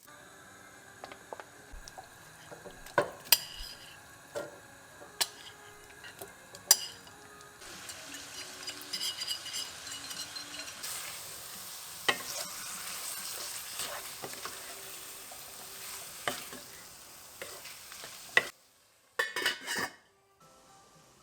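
A spoon clinking and scraping against a cooking pot while food is stirred. About seven seconds in, a steady sizzle of frying starts and grows stronger, then cuts off abruptly near the end, followed by a few more clinks.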